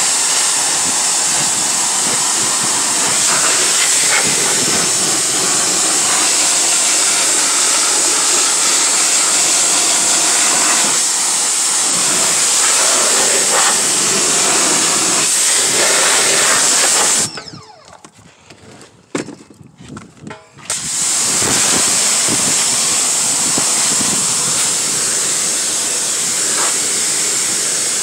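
Pressure-washer jet spraying a car's seats and floor, a loud steady hiss of water. It stops for about three seconds a little past the middle, then starts again.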